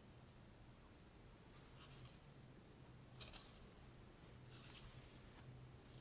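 Near silence: a low steady hum with three or four faint, brief rustles and scrapes of a disassembled floppy drive's metal frame being turned over in the hands.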